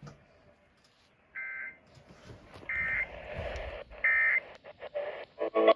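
Emergency Alert System digital data tones over the radio: three short, identical screeching bursts about a second and a half apart, the end-of-message code that closes the weather warning. Crackling radio static follows near the end.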